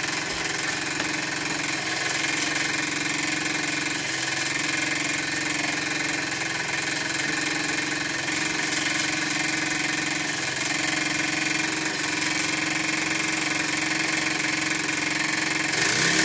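Microcosm M1 double-acting marine steam engine, 9.5 mm bore by 15 mm stroke, running steadily under steam at about 7.5 to 8 pounds of boiler pressure.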